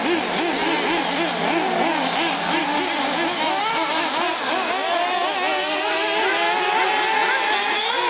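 Several 1/8-scale nitro R/C trucks and buggies racing around the track at once, their small engines overlapping and whining up and down in pitch with each blip of throttle. A steadier, lower engine note fades out about three and a half seconds in.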